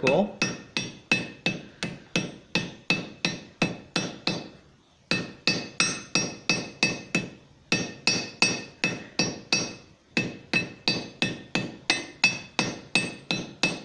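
Hammer tapping lightly and quickly, about four taps a second, on a red-hot quarter-inch steel Turk's head knot sitting in a spherical swage on the anvil, each tap ringing. The taps stop briefly a few times, about four and a half, seven and a half and ten seconds in, as the knot is turned between runs of taps to tighten it and make it round.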